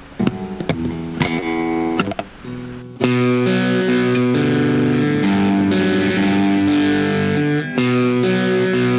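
Epiphone Les Paul SL electric guitar played through an amp with a little overdrive, on both pickups. A few picked notes and strums come first, then from about three seconds in it plays louder, steadily ringing chords and single notes.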